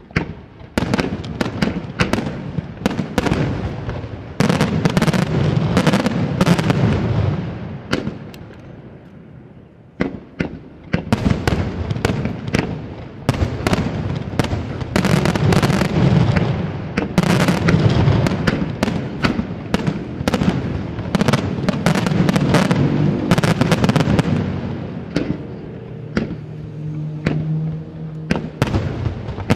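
Aerial firework shells bursting in rapid barrages, a dense run of sharp bangs and booms. It dies down for a moment, starts again abruptly about ten seconds in, and thins out near the end.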